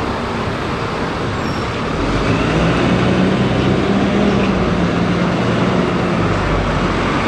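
Red double-decker city bus pulling away and driving past, its engine giving a steady low drone that strengthens about two seconds in, over street traffic noise.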